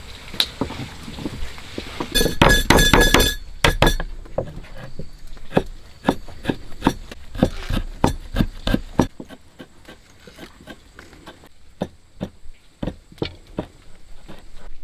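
A long run of sharp, irregular knocks and taps, like work with a tool on wood. About two seconds in comes a dense metallic clatter with a ringing note, lasting a second or so.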